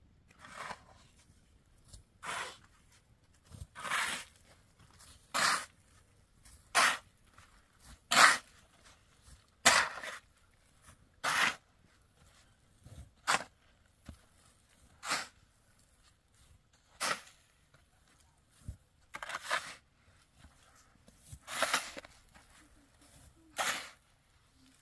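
Steel shovel blade scraping and scooping into a pile of sand and fine gravel, a short gritty stroke about every one and a half to two seconds, around fourteen strokes in all.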